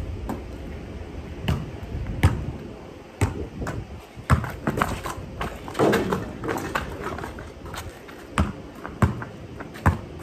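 Basketball bouncing on a concrete driveway: scattered thuds, then dribbling at about one bounce a second near the end.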